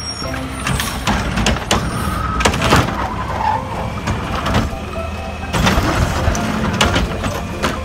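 Garbage truck's engine running, with a series of clanks and knocks as its automated arm grabs a wheeled trash cart and lifts it to empty it.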